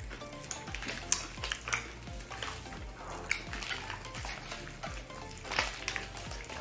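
Small plastic candy wrappers crinkling and crackling in the hands as packets of popping candy are torn open, with irregular small clicks throughout.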